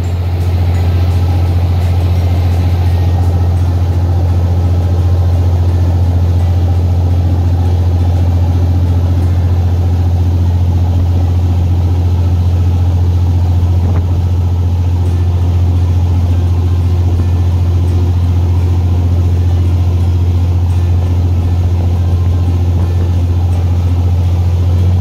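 Motor boat's engine running at a steady low drone while under way, with the rush of water and wind over it.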